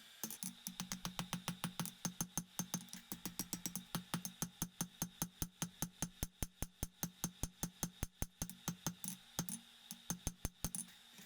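Hand hammer striking hot steel sucker rod on an anvil in a fast, even rhythm of about five blows a second, over a steady low hum. The hammering breaks off briefly about nine and a half seconds in, then resumes for a few more blows.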